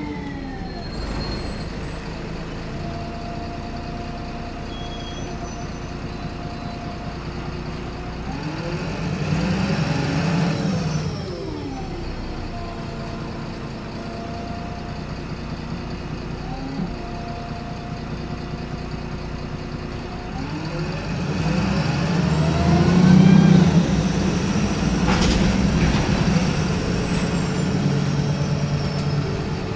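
VDL SB200 bus heard from inside the saloon: the engine and driveline run throughout and twice swell in pitch and loudness, about 8 s and 21 s in, as the bus accelerates, with a steady whine in between. A brief sharp sound comes near the top of the second swell.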